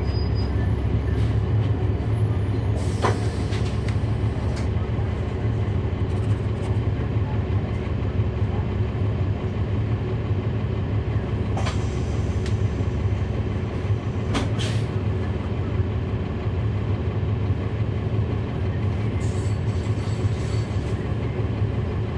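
Inside a 2011 NABI 40-SFW transit bus: its Cummins ISL9 diesel engine running with a steady low drone, and a few sharp knocks from the body about 3, 12 and 14 seconds in.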